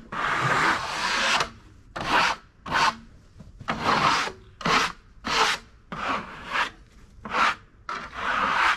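Scraping strokes across the end of a freshly sawn ambrosia maple log, cleaning the sawdust off it: one long stroke, then about nine short rasping strokes in a quick, uneven rhythm.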